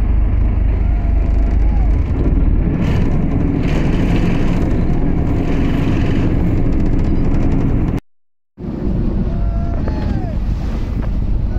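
Wind buffeting the microphone over open water, a steady low rumble, with a few faint distant calls from the rowing crew. The sound cuts out completely for about half a second near the end, then resumes.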